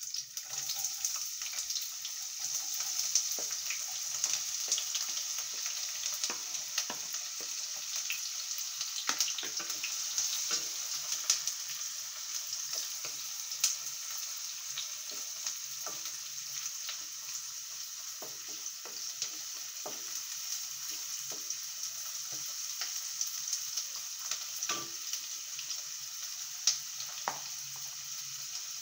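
Chopped onions sizzling steadily in hot oil in a nonstick kadai, with frequent small taps and scrapes from a wooden spatula stirring them. The sizzle eases slightly over time.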